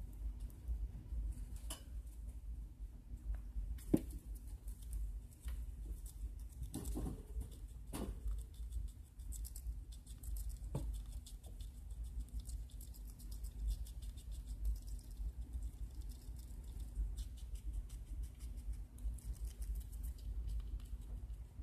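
Pet rat chewing shredded salad: a fast, continuous run of small crunching clicks, with a few louder knocks now and then, over a steady low hum.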